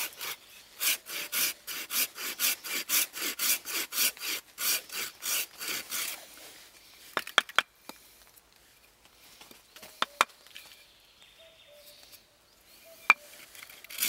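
Small hand saw cutting a shallow relief cut into a wooden spoon blank braced on a stump, with quick back-and-forth strokes for about six seconds. The sawing stops, and a few sharp clicks and knocks follow as the blank is handled.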